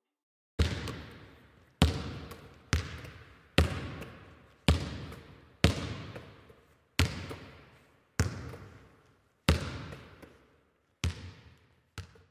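A basketball bouncing on a hard court about once a second, around eleven bounces, each one echoing as in a large gym.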